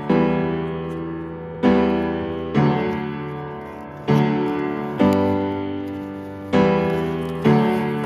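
Background piano music: slow chords, each struck and left to fade before the next, a new chord about every second or so.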